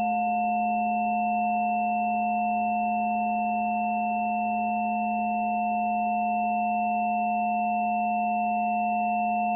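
Microphone–loudspeaker acoustic feedback, processed by computer, held as a steady chord of pure tones: a low hum with two stronger mid tones and a faint high one above it, hardly changing throughout.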